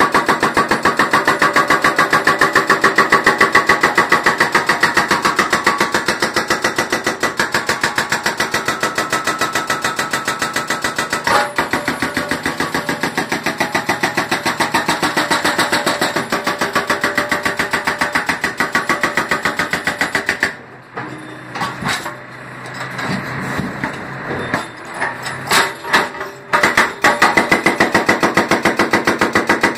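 Excavator-mounted hydraulic breaker hammering into a concrete road in a rapid, even stream of blows. Past the middle the hammering stops for about six seconds, leaving quieter scattered knocks, then starts again.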